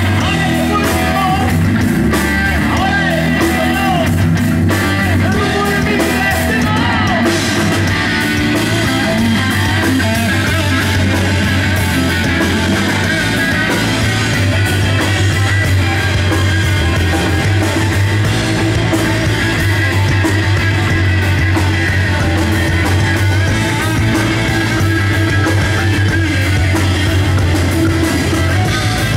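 Live rock band playing loud: electric guitar leading over bass guitar and drum kit.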